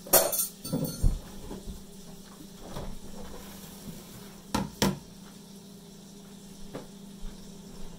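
Kitchen refrigerator opened and a syrup bottle taken from it: a few sharp knocks and clunks of the door and of things inside, the loudest just after the start and a close pair about halfway through, over a steady low hum.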